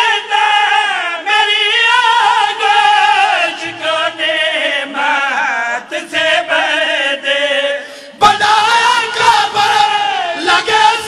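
A man's voice chanting a devotional qasida at a microphone, in long held, wavering sung lines, with a short breath pause about eight seconds in.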